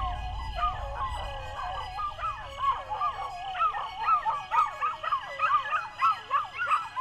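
Several dogs howling and yelping, many short wavering calls overlapping and rising and falling in pitch, growing denser about halfway through. A low rumble is underneath in the first second or two.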